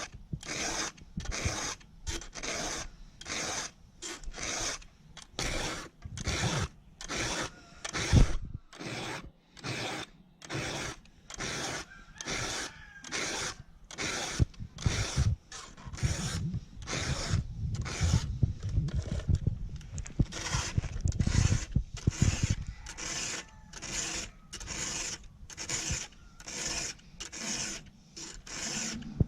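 Chainsaw chain being sharpened with a hand file: steady rasping file strokes across the cutters, a little over one stroke a second. Some low knocks and handling noise come in about halfway through.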